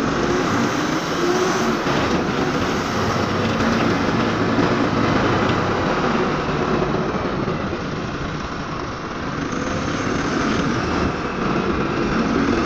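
Truck driving along a road: a steady rush of road and wind noise with the engine running underneath, heard from the open cargo bed.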